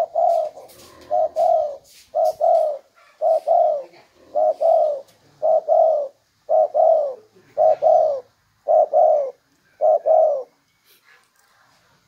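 Caged spotted dove cooing in short two-note phrases, about one a second, about ten times before it stops near the end.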